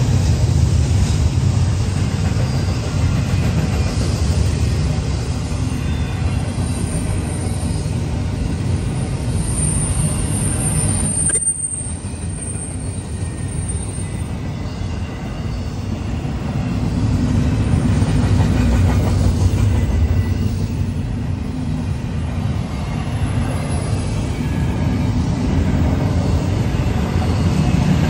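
Double-stack intermodal freight cars rolling past at speed, a steady heavy rumble of steel wheels on rail. A thin high wheel squeal rises over it for a few seconds near the middle.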